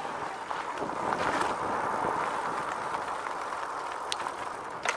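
RadRover fat-tyre electric bike riding along a dirt trail: a steady rolling noise from the tyres on the dirt, with a few sharp clicks, one just after the start and two near the end.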